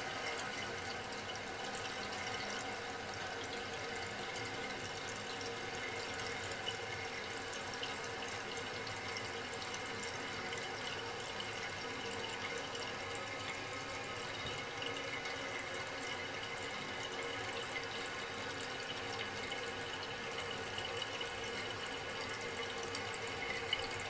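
Water refilling a 1984 Crane toilet tank through an old 400 fill valve: a steady hiss of running water with a faint whistle of several held tones.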